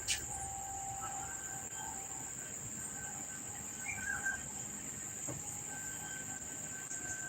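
Steady high-pitched insect chirring, likely crickets, with faint on-and-off lower tones and a short chirp about four seconds in.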